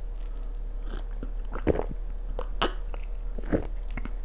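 A person drinking cola from a glass: a few gulps and swallows heard close up, as scattered soft clicks.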